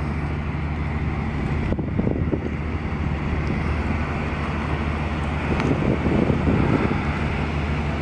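Steady low machinery drone from the docked cargo ship Taporo VII and its deck crane as it handles a fuel tank container, with wind noise on the microphone.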